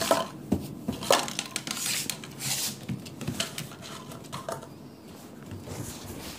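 A puppy knocking a plastic pudding cup around a vinyl kitchen floor: irregular light clicks and rattles, thickest in the first few seconds.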